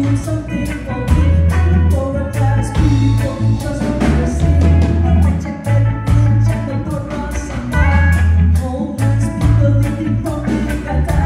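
Live reggae band: a woman singing into a microphone over electric guitar, a heavy bass line in long held notes, and a steady drum beat.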